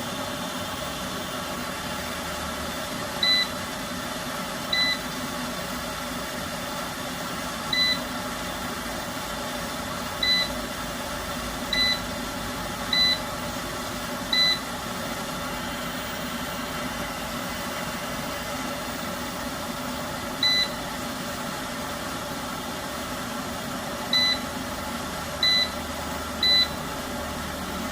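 An off-grid solar inverter under repair, its buzzer giving about a dozen short single beeps at irregular intervals over a steady electrical hum.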